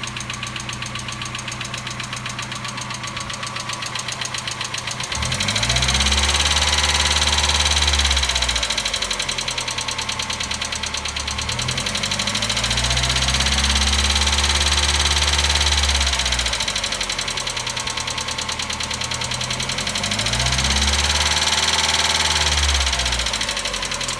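1990 Mazda Miata's 1.6-litre four-cylinder engine on a cold start, idling with a fast, even ticking and then revved three times, the noise rising with rpm. The owner can't tell whether it is engine knock or hydraulic lash adjuster (lifter) tick.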